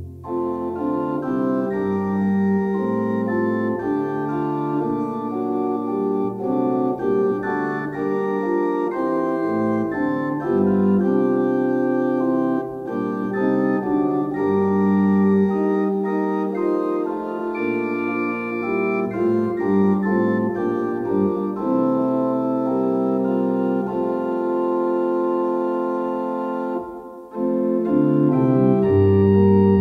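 Organ playing a hymn tune in sustained block chords, with a brief pause near the end before the next verse begins.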